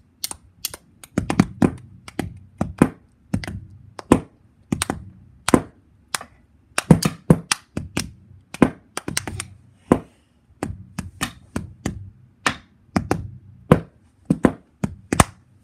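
Close, sharp taps and clicks on a hard surface, coming irregularly in quick clusters of a few per second.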